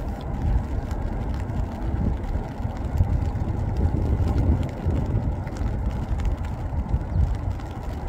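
Wind buffeting the microphone: a low, gusty rumble that swells and falls throughout.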